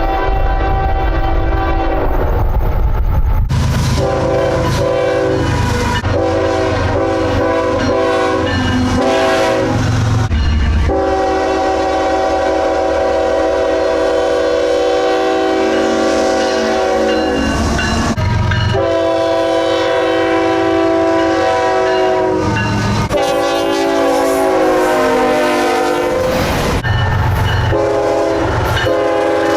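Nathan Airchime K5HL five-chime locomotive horns sounding a run of blasts from several trains, one after another, with the chord changing between clips and one long blast held for about seven seconds in the middle. Low rumble of the passing locomotives and wheels runs underneath.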